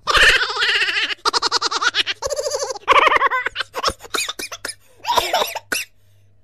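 High-pitched laughter in several bursts of rapid, repeated ha-ha pulses, with a faint steady low hum underneath.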